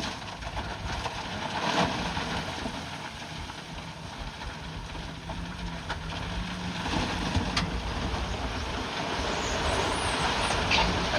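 Bulldozer at work: a steady mechanical running noise with a few sharp metallic clanks.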